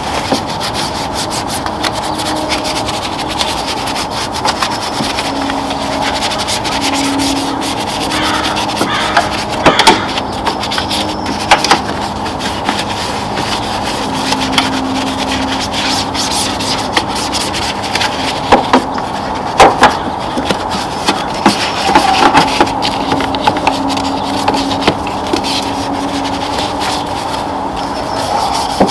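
A detailing brush scrubbing foam-covered engine-bay surfaces: a steady, wet bristle rubbing with a few sharp clicks scattered through it.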